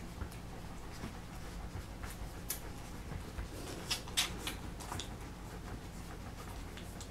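Three-week-old puppies nursing from their mother: soft suckling smacks and scratchy rustling of paws on a fleece blanket, with a few sharper clicks around the middle.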